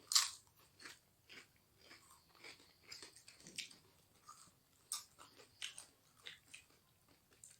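A person biting and chewing crunchy food close to the microphone: a string of short, irregular crunches, the loudest one right at the start.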